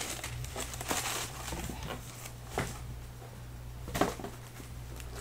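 Handling noise from a suede sneaker being turned over in the hands: rustling for the first couple of seconds, then two sharp knocks, the second about four seconds in, over a steady low electrical hum.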